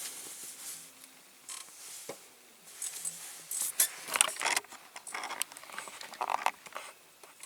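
Small diecast model parts being handled and moved about on a workbench: scattered light clicks, taps and rustling, busier in the second half.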